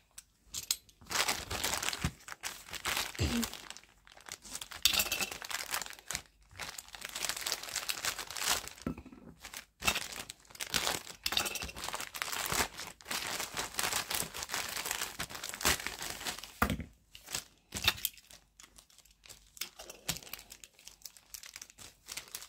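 Clear plastic packaging bag crinkling and rustling as hands pull it open to free a figure; the crackle eases near the end.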